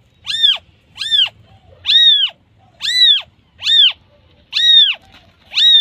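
Newborn kitten crying for its mother: a regular series of seven short, high-pitched mews, about one a second, each rising and then falling in pitch.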